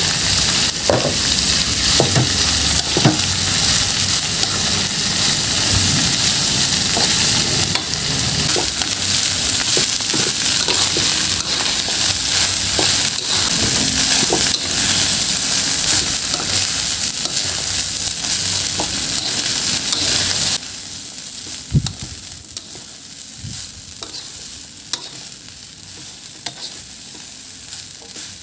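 Fried rice sizzling in hot oil in a wok as a silicone spatula stirs and scrapes it through, with frequent short scrapes and knocks against the pan. About two-thirds of the way through, the loud sizzle drops off suddenly, leaving quieter stirring and a few knocks.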